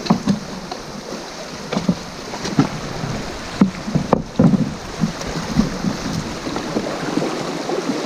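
Fast, shallow river water rushing steadily past a wooden boat, with irregular knocks and thuds on the hull, a dozen or so, bunched in the first five seconds.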